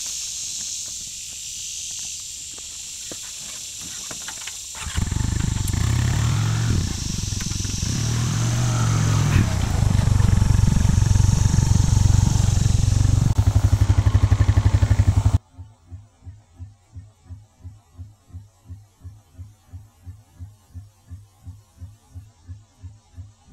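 Insects hum in the background, then about five seconds in a Honda Rancher ATV's single-cylinder engine comes on and runs loud and low, growing louder, with an even pulsing near the end. It cuts off suddenly after about fifteen seconds, giving way to a faint, soft, evenly pulsing beat.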